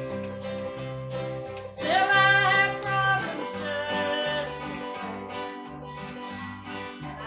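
Live country gospel music from a small band: strummed acoustic guitar and an electric bass playing a steady walking line. About two seconds in, a loud held melody note slides up into pitch and lasts about a second and a half.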